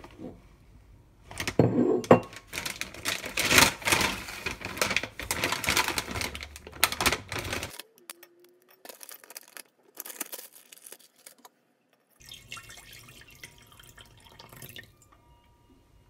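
A clear plastic bag of dried kelp (dashima) crinkling loudly while the stiff kelp is handled and pulled out. It is followed by a few light clicks as pieces of dried kelp drop into a ceramic bowl.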